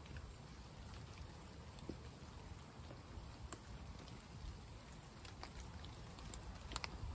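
Light rain pattering on a tarp shelter, with scattered faint clicks over a low rumble.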